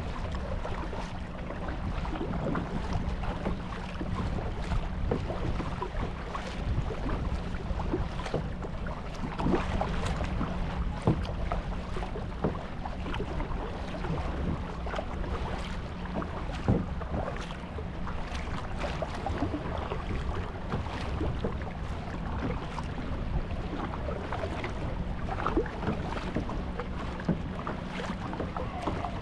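Water splashing and lapping around a kayak on open water, with many small irregular splashes and knocks. A steady low wind rumble on the microphone runs underneath.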